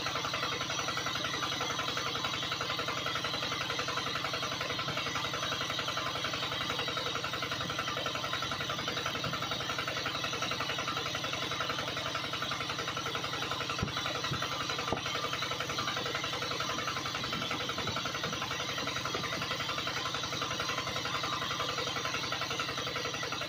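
Small motor of a homemade mini water pump running steadily with an even, fast buzz, with a couple of light knocks around the middle.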